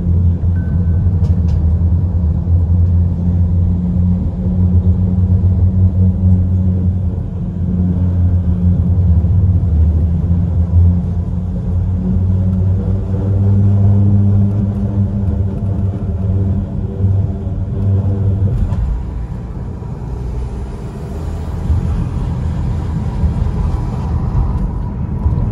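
Car tyres running over the grid-textured deck of a steel truss bridge, making a steady low hum with a rumble. About three-quarters of the way in the hum stops and gives way to plainer tyre and road noise on asphalt.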